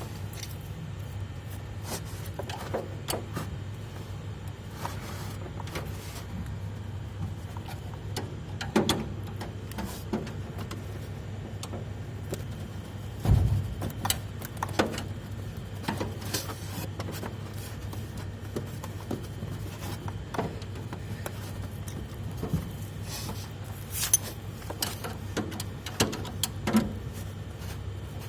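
Scattered metal clicks, knocks and scrapes as an indoor air-conditioner fan motor is pushed and worked into its mounting inside the unit's sheet-metal housing, the loudest knock about 13 seconds in. A steady low hum runs underneath.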